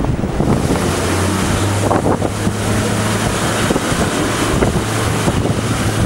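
Wheel loader's engine running as it drives through floodwater, with water rushing and splashing around its wheels. Wind buffets the microphone.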